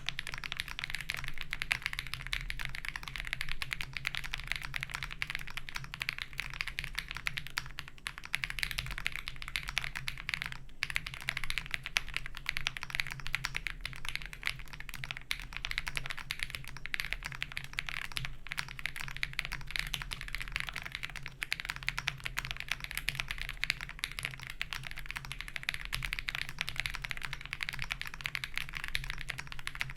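Continuous fast typing on an acrylic-cased Owlab Spring Alice-layout mechanical keyboard with KTT Peach linear switches and PBTFans Pyga PBT keycaps: a dense stream of keystroke clacks, with a brief break about eleven seconds in.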